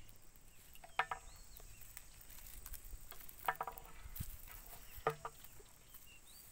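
Chicken clucking: three short calls about two seconds apart, with a few faint high chirps between them.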